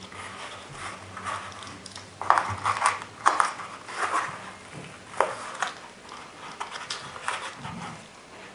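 Nylon belt holster being handled and its retention strap folded over and snapped shut: a string of short rustles and scuffs of nylon fabric with light clicks, busiest about two to three and a half seconds in.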